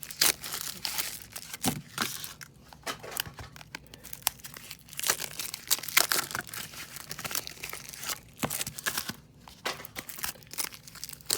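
1994 Flair baseball cards and their packaging being handled: a continuous run of crinkling with quick irregular clicks and slides as the cards are flipped through.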